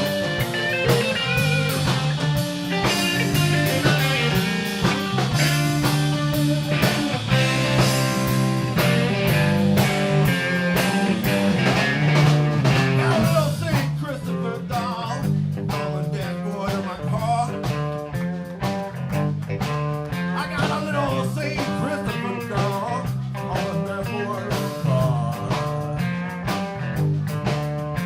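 Live blues band playing: an electric guitar lead with bent notes over electric bass and a drum kit. The band plays a little softer from about halfway through.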